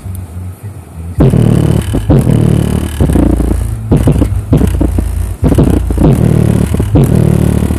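Two Polk car subwoofers in a ported box tuned to 32 Hz playing bass-heavy music. Faint steady bass at first, then from about a second in the bass hits loud enough to overload the recording, pulsing throughout.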